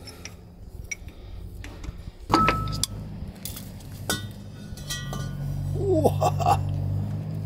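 Metal clinks and knocks from a spanner working the last bolt off a telehandler's drive shaft, with a sharp clank a little over two seconds in and another about four seconds in. A steady low hum runs underneath from the first clank on.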